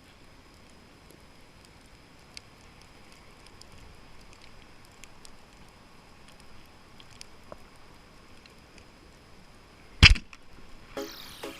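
Faint underwater ambience with scattered small clicks, then a single loud, sharp speargun shot about ten seconds in. Rhythmic music starts just after it, near the end.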